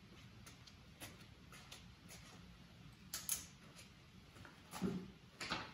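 Faint handling noise: scattered light clicks and rustles over a low room hum, with a louder cluster about three seconds in and another near the end.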